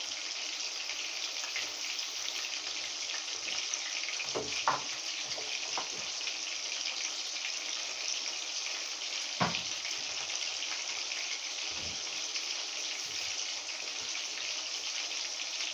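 Chicken frying in hot oil with a steady sizzle. A few light knocks are heard along the way.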